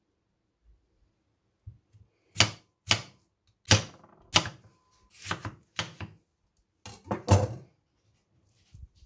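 Chef's knife cutting into a raw potato on a wooden board, about eight separate strokes a little over half a second apart, each cut stopped by the wooden spoons laid on either side. A few faint handling knocks come before the first cut.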